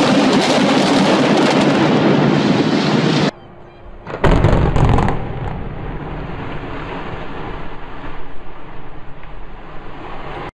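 Building implosion demolitions. First comes the steady noise of collapsing masonry and falling debris, which cuts off suddenly about three seconds in. About a second later a second demolition sets off a loud blast, followed by the long rumble of the collapse slowly dying away.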